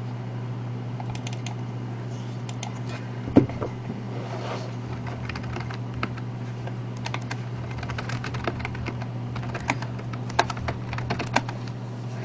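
Typing on a computer keyboard: irregular clicks of keystrokes coming singly and in short runs, one sharper click a few seconds in, over a steady low electrical hum.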